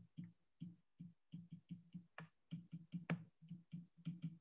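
Stylus tapping on a tablet's glass screen while handwriting: a quiet, irregular series of short taps, about four a second, with two sharper ticks a little past two and three seconds in.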